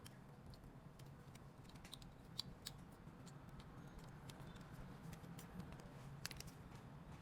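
Faint, irregular clicks and light taps of small repair tools on a phone, with a sharper click about two and a half seconds in and another about six seconds in, over a low steady hum.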